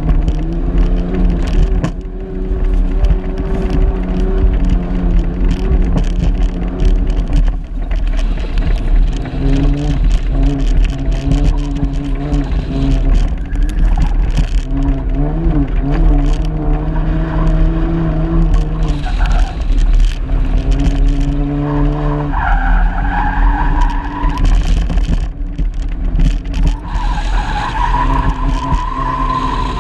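Car engine revving up and down as it is driven hard on dirt, its pitch climbing and dropping several times with the gear changes and corners, over tyres sliding on loose dirt. Heard from inside the cabin with the window open, under a steady heavy low rumble of wind and road noise.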